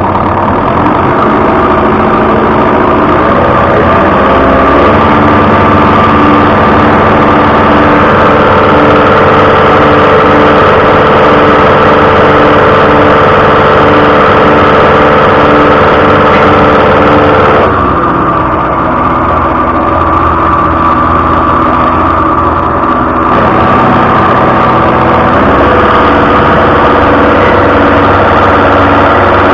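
An engine running steadily and loudly, its speed shifting a few times in the first five seconds and its sound changing at about 18 seconds and again at about 23 seconds.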